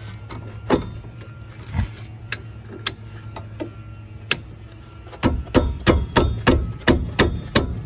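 3/8-drive socket ratchet working a tight 14 mm brake caliper bolt: a few scattered clicks, then from about five seconds in a quick, even run of sharp clicks, four or five a second. A steady low hum sits underneath.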